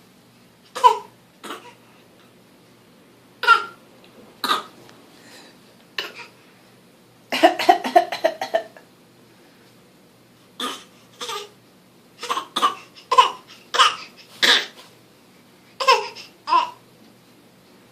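Young child fake coughing: short single coughs spaced a second or so apart, with a quick run of several together about seven seconds in.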